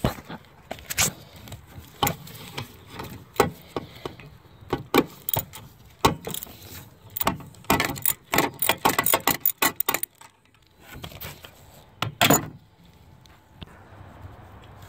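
Hand ratchet clicking in short runs as it backs off a 10 mm nut on an AC line clamp, with a quick run of clicks from about six and a half to ten seconds in. A brief louder noise about twelve seconds in.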